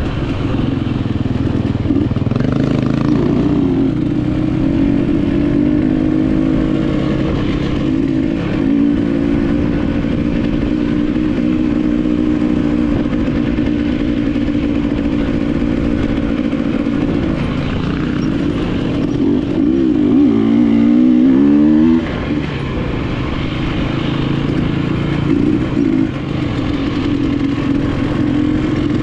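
KTM enduro motorcycle engine under way, its revs rising and falling with the throttle. About two-thirds of the way through it climbs steadily in pitch for a few seconds, then drops off sharply.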